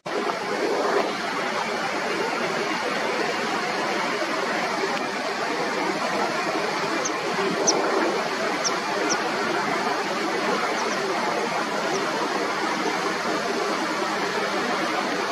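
Steady outdoor background noise, an even rush with no rise or fall, with a few short high chirps near the middle.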